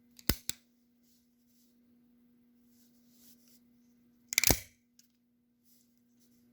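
Sharp metal clicks from a handmade switchblade knife being handled: two quick clicks right at the start, then a louder cluster of clicks about four and a half seconds in, over a steady low hum.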